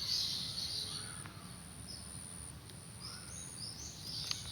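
Birds chirping and twittering, loudest about the first second and again near the end, with short rising chirps in between, over a faint steady high-pitched whine.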